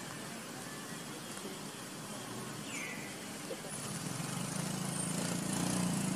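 A motor vehicle's engine humming low and steady, growing louder from about halfway through as it approaches, over a constant outdoor hiss. A single short falling chirp sounds near the middle.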